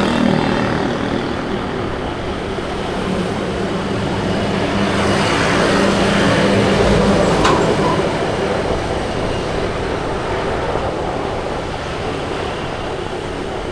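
Steady engine and road noise from a moving vehicle, growing louder through the middle and easing off after about eight seconds.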